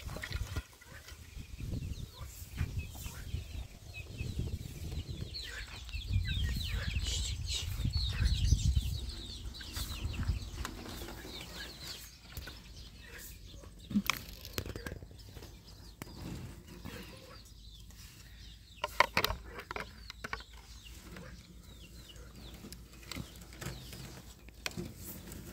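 Chickens clucking, with a busier stretch of high calls and wing flapping about six to ten seconds in. A few sharp knocks later on.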